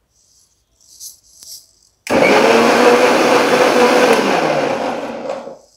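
Havells mixer grinder blending chikoo, milk and vanilla ice cream in its steel jar. After a couple of faint clicks, the motor starts abruptly about two seconds in, runs steadily, then winds down and stops near the end as it is switched off.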